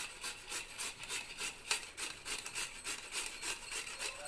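Peeled raw potato being grated on a stainless-steel hand grater: steady rasping strokes, about three a second.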